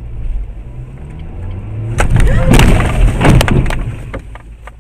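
Car collision heard from inside the cabin: about two seconds in, a sudden loud burst of crunching and knocking that lasts under two seconds. A low engine and road rumble runs beneath it.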